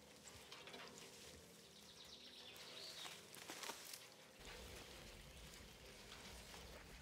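Faint outdoor ambience of soft scuffs and crunches, like footsteps and soil being scraped as a steel sculpture is pushed round through loose earth. A faint bird call comes about three seconds in, and a low rumble joins in after about four seconds.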